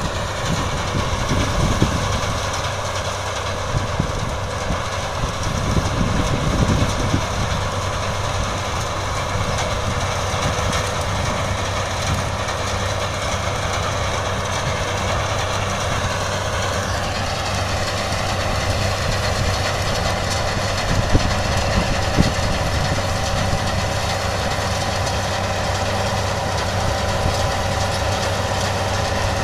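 CLAAS Mercator 75 combine harvester running while harvesting: a steady machine drone carrying several held whining tones that shift slightly in pitch about halfway through.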